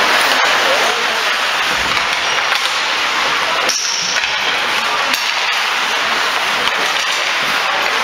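Ice hockey game sound in a rink: a steady wash of crowd noise with distant shouting voices, broken by sharp clacks of sticks and puck, one about half a second in and another just before four seconds.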